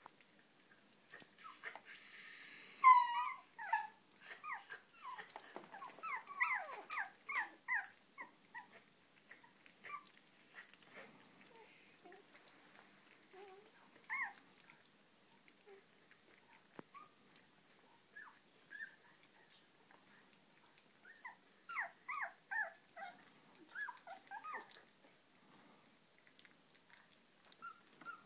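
Kooikerhondje puppies whining and squeaking while eating from a shared food dish. A wavering whine a couple of seconds in is the loudest sound, followed by clusters of short high squeaks and faint clicks.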